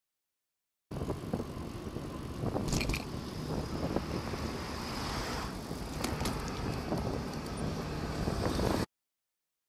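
Wind buffeting the microphone of a camera on a moving bicycle, with tyre and road noise and passing motor traffic, and a few sharp clicks about a third of the way in. It starts about a second in and cuts off abruptly near the end.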